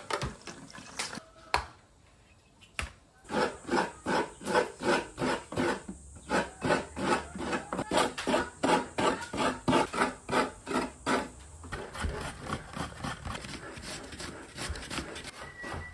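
Coconut meat being scraped by hand on a bench-mounted serrated metal coconut grater: even rasping strokes, about two to three a second, that stop about three-quarters of the way through.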